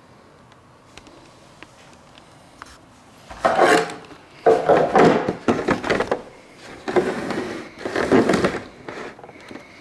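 Handling noise as the camera is carried and set down on a wooden table: rubbing and knocking right against the microphone in three or four loud bursts, starting about three seconds in and dying down near the end.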